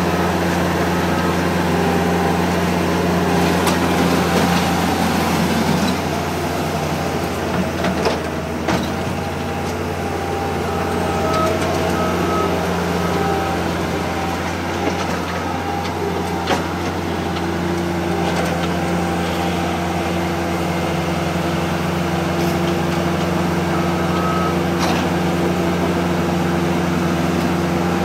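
Case 85XT skid steer loader's diesel engine running steadily while it works loose gravel, with a few short knocks and a reversing alarm beeping at intervals.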